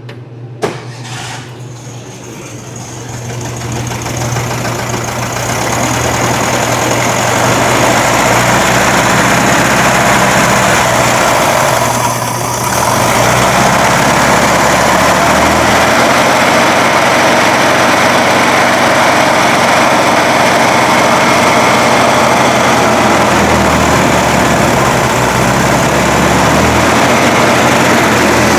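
1961 VW Beetle's air-cooled flat-four engine running on a test fire, getting louder over the first few seconds and then running steadily, with a brief dip about twelve seconds in.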